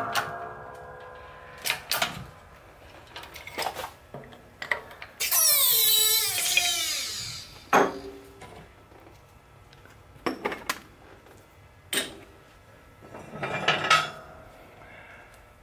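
Hydraulic shop press pushing a new wheel bearing into a front steering knuckle: scattered metallic clicks and knocks, with a loud, harsh noise about five seconds in that lasts about two seconds. Near the end there is a clatter of metal as the knuckle is handled on the press plate.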